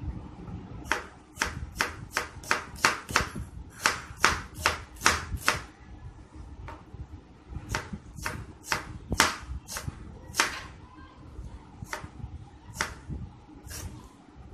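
Kitchen knife chopping an onion on a plastic cutting board: a run of sharp knocks about three a second, a short pause about six seconds in, a second run, then a few slower strokes near the end.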